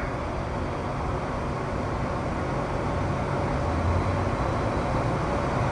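Steady rushing hum inside a stopped subway car, its ventilation and onboard equipment running while it stands at the station.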